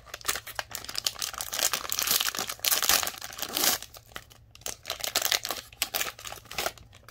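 Plastic trading-card pack wrapper being torn open and crinkled by hand, with dense crackling that peaks in the middle and thins out over the last few seconds.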